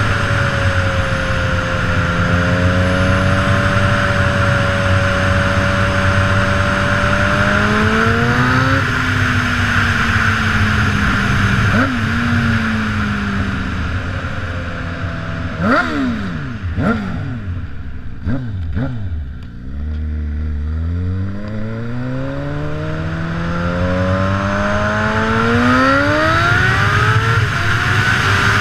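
A 2005 Kawasaki ZX6R's inline-four engine while riding, over wind noise. The engine holds a steady cruise, then a little past halfway the revs fall through a few quick blips almost to idle as the bike slows, and after that the revs climb again in several steps as it accelerates up through the gears.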